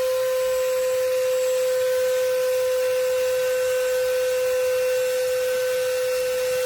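Electric hydraulic car jack's motor-driven pump running with a steady, even whine at one pitch, raising a vehicle under load.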